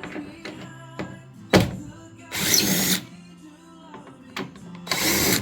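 Background music with steady held notes, broken about one and a half seconds in by a single heavy thud, and later by two short bursts of hissing noise.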